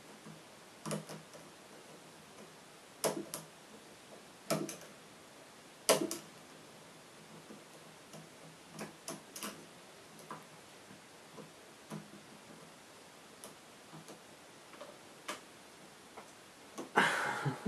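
Metal hook pick clicking against the pins and keyway of a VITA 5-pin euro cylinder lock during single pin picking. There are sharp, irregular clicks a second or more apart as the pick slips off the pins, and a denser rattle near the end.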